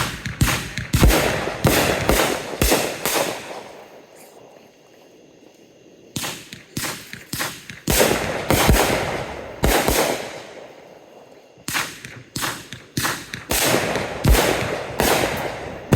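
Consumer fireworks going off in three rapid volleys of sharp bangs, several bangs a second, each bang trailing off in echo, with short lulls between the volleys.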